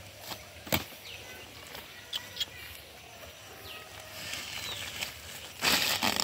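A fish dropped into a plastic crate with one sharp knock about a second in, followed by a few light clicks and the rustle of water hyacinth leaves underfoot, with a louder rustling burst near the end.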